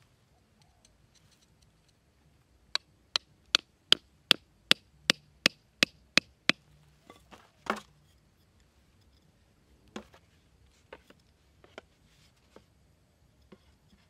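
A hammer driving a wooden stake into the ground: a quick run of about ten sharp knocks, then one heavier knock and a few scattered lighter taps.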